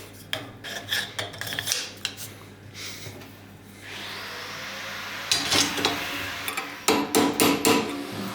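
Hand rasp or file strokes scraping across wood, short and irregular. About four seconds in a steady hiss joins them, and a run of louder strokes comes near the end.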